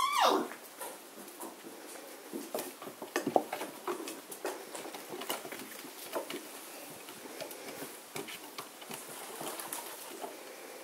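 German shorthaired pointer puppies' paws and claws pattering and scrabbling in irregular taps on a wooden platform and concrete as they play. One puppy gives a short falling whine at the very start.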